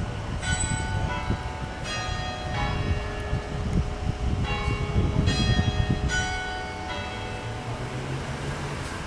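St. Philip's Church bells ringing, one stroke after another about every three-quarters of a second, each note hanging on under the next. A low rumble runs underneath.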